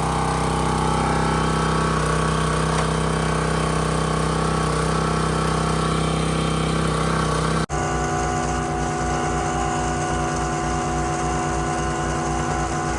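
Small engine running steadily. About two-thirds of the way through it cuts out for an instant, then continues with a low pulsing of about four beats a second.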